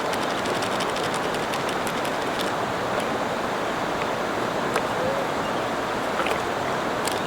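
River water flowing, a steady rushing that does not change, with a few faint scattered clicks over it.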